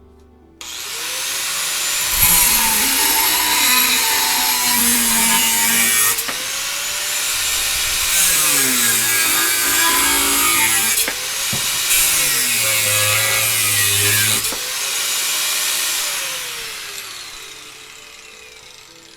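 AVID Power 7.5-amp, 4-1/2 inch angle grinder with a cut-off wheel spinning up, then cutting through thin flattened metal tubing in three loud bouts, the motor pitch dipping under load. Near the end it is switched off and winds down in a falling whine.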